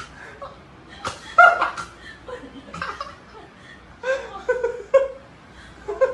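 A person laughing off-camera in several short bursts of giggles and chuckles.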